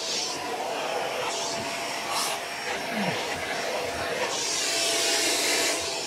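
Shark DuoClean PowerFins Lift-Away vacuum running with the upholstery tool on its hose: a steady suction rush with a faint whine. From about four seconds in, a louder, higher airy rush lasts a second and a half.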